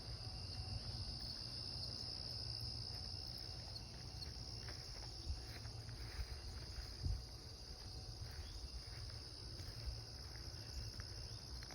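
Steady high-pitched chorus of crickets, with a low rumble underneath and a few faint knocks.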